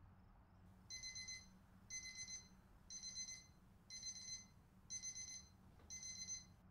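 Smartphone alarm going off: six short bursts of high electronic beeping about a second apart, then it stops near the end.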